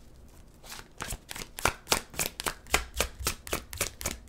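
A deck of tarot cards being shuffled by hand: a quick run of card slaps and flicks, about four or five a second, starting about half a second in.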